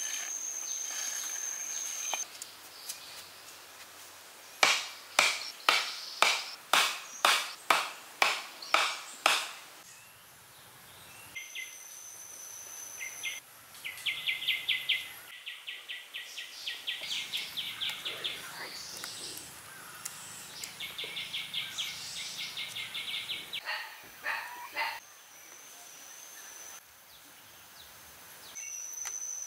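A run of about ten sharp strikes, roughly two a second, followed later by two bursts of fast rasping. A steady high-pitched insect whine is heard at the start and near the end.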